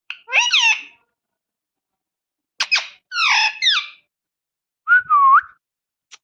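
Pet parrot whistling and calling in three short bursts of gliding, whistle-like calls with pauses between; the last is a single swooping whistle.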